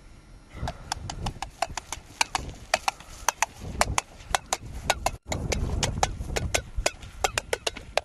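Clip-clop of hoofbeats: quick, irregular sharp knocks, about five or six a second, with a brief cutout about five seconds in.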